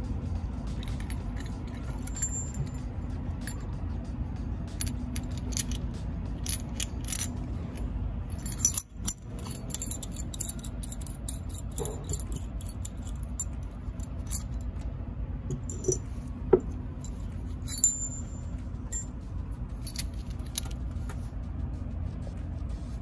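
Small metal tools and water pump parts clinking and clicking as they are handled and set down, in sharp irregular clicks, over steady background music.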